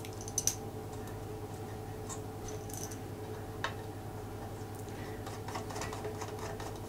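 Light, scattered metallic clicks and ticks of a JIS screwdriver working the screws of a Ricohflex TLR camera's top cover, over a steady low hum.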